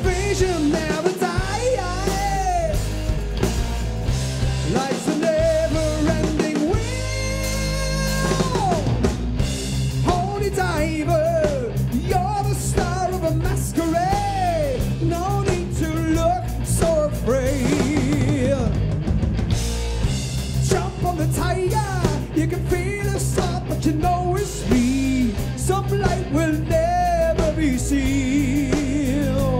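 A live rock and roll band playing a song with a lead vocal over drums, bass and guitar, with one long held note about seven seconds in.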